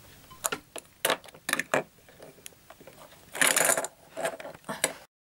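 Chunky plastic toy blocks clicking and knocking as they are handled: a run of sharp clicks in the first two seconds, then a louder rustle about three and a half seconds in. The sound cuts off suddenly just before the end.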